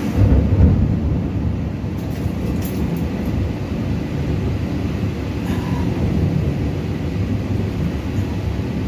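Strong wind buffeting the microphone during a heavy rainstorm: a steady low rumble over the hiss of the rain, with a gust about half a second in.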